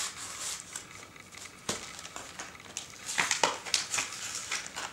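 A rigid plastic clamshell package being cut and pried open: the plastic crackles and crinkles, with sharp snaps and clicks that get busier about three seconds in.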